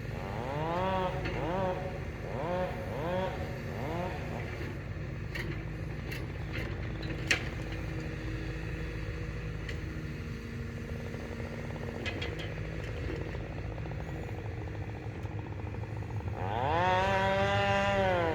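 Two-stroke chainsaw revved in several short bursts, each rising and falling in pitch, then held at high revs for about two seconds near the end while cutting into a felled pine. A steady low engine hum runs underneath, and there is one sharp knock about seven seconds in.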